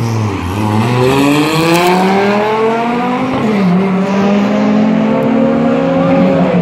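A Dodge Viper and a sedan launching off a drag-strip start line under full throttle. The engine note dips at the launch and climbs, drops at a gear change about three and a half seconds in, then climbs again.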